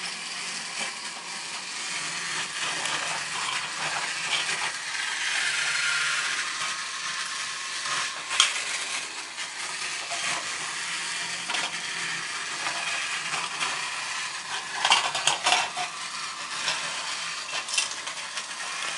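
Small motorized toy train running along plastic track: a steady whirring rattle, with a sharp click about eight seconds in and a burst of louder clacks around fifteen seconds.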